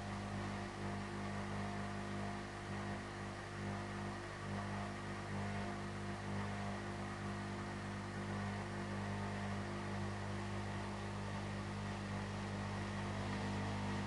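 Hotpoint NSWM 843C washing machine running in its final rinse, a steady low hum with no change in pitch.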